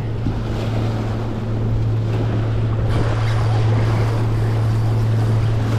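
Waves washing and splashing against the rocks of a jetty, with wind on the microphone, over a steady low hum.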